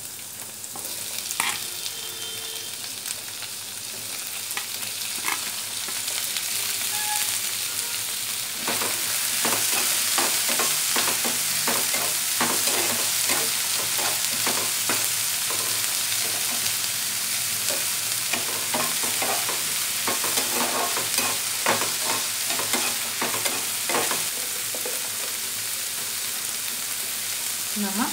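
Diced onion and bell peppers sizzling in hot olive oil in a frying pan, the sizzle getting louder about eight seconds in. A spatula stirs them, with many quick scrapes and taps against the pan.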